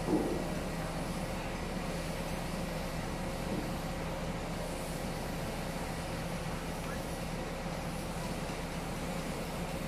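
Steady mechanical drone of running machinery with a constant hum, and a short louder sound just after the start.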